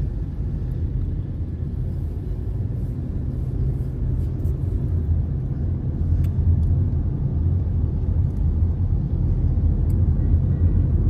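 Steady low rumble of a moving car heard from inside the cabin: engine and road noise while driving, a little louder in the second half.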